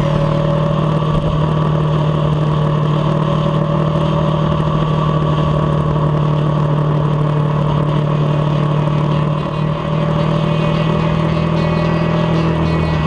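Kawasaki Versys 650's parallel-twin engine running steadily at cruising speed, picked up by a camera mounted on the bike; the level briefly drops about nine and a half seconds in.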